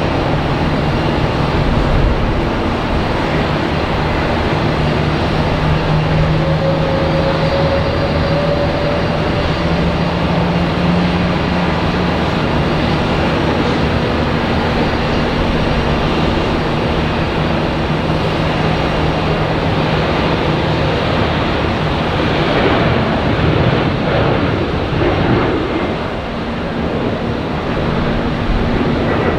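Jet airliner engines running loud and steady, with a low drone and a faint whine that rises slightly a few seconds in.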